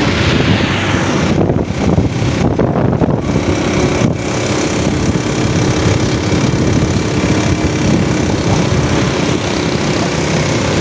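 Steady engine and road noise of vehicles on the move, with a low engine hum and no horn sounding.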